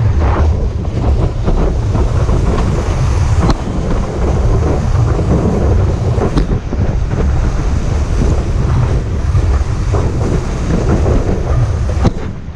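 Heavy wind buffeting on an action camera's microphone while a surfboard rides a wave, mixed with rushing and splashing whitewater around the board, with a few sharp splashes.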